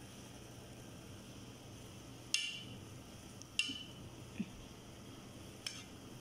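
A metal spoon clinking against a cooking pot: two sharp clinks with a short ring about two and a half and three and a half seconds in, and a fainter one near the end, over a faint steady hum.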